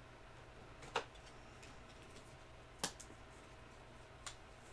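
A trading card in a clear plastic sleeve being handled by hand, giving three short, sharp plastic clicks about a second apart, over a faint steady low hum.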